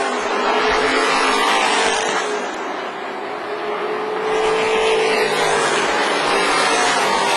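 Engines of a pack of racing pickup trucks running on an oval short track, a steady drone that dips briefly about three seconds in and swells again as the trucks come round.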